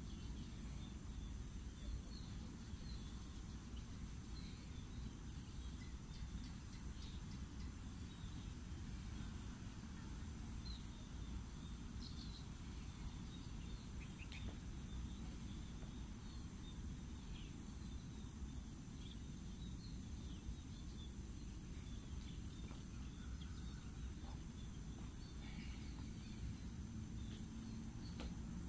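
Outdoor rural ambience: a steady low background rumble with scattered short bird chirps throughout and a faint steady high hum.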